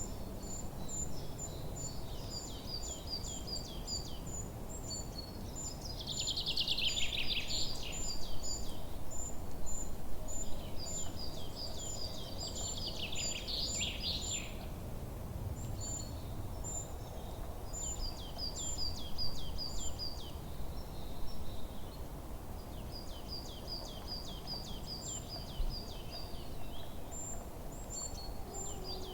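Several songbirds singing in a forest. One repeats a high, short chirp again and again, while others sing short phrases of quick falling notes, with two louder trills a few seconds apart. A low, steady background rumble runs underneath.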